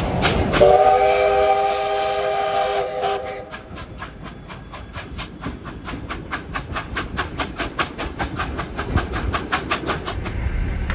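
Steam locomotive whistle sounding one long blast of about three seconds, its pitch settling just after it starts. A fast, even rhythm of beats from the train moving off runs throughout.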